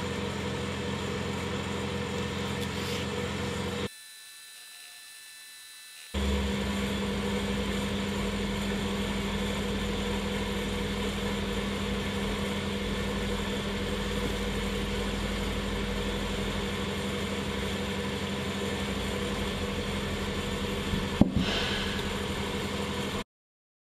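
Steady electrical machine hum with a low drone, dropping much quieter for about two seconds a few seconds in, and a single sharp knock near the end before the sound cuts off.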